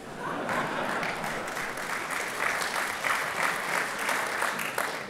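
Large audience applauding, a dense, steady clapping that starts as the speech ends.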